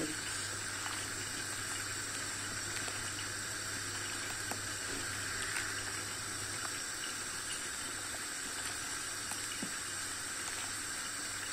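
Tarhana soup simmering in a stainless steel pot while being stirred with a wooden spoon: a steady bubbling, sloshing hiss with a few faint clicks, over a low steady hum.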